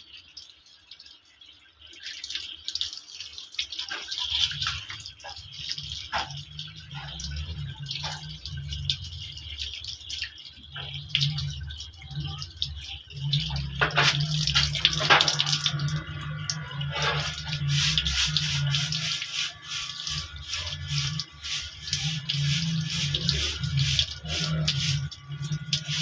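Water splashing and wet fur being rubbed by hand as a cat is lathered and scrubbed, with irregular small splashes and drips. Background music with a steady low bass comes in about four seconds in and carries on beneath it.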